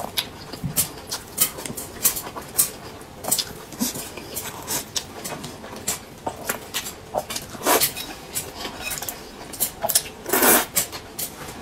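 Close-up eating sounds: chopsticks clicking against the bowl and plates, with wet mouth smacks scattered throughout. About ten seconds in comes a louder, longer slurp of noodles.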